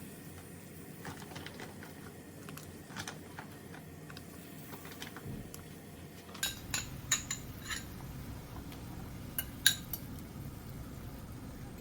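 Dishes and cutlery clinking: scattered light clinks, a quick run of about five sharp clinks around the middle and two more near the end, over a low hum that comes in about halfway.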